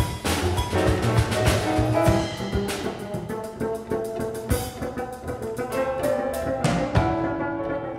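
Live jazz trio playing: a drum kit with frequent cymbal and drum strikes, a double bass plucked by hand, and piano.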